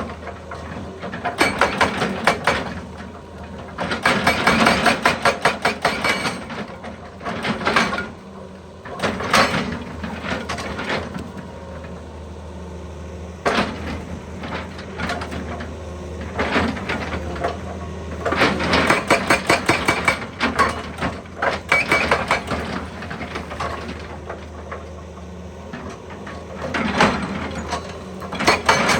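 An excavator's hydraulic breaker hammering rock in repeated bursts of rapid blows, each burst lasting a second or two, over the steady hum of the excavator's diesel engine.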